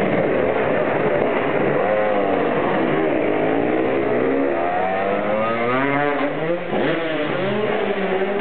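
Dirt bike engine revving, its pitch climbing and falling again and again as it accelerates, over a steady rushing noise.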